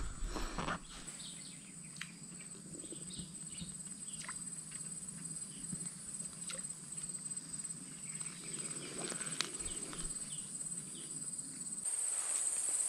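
Faint outdoor swamp ambience: a steady, high-pitched insect drone with scattered short chirps. The drone grows louder near the end.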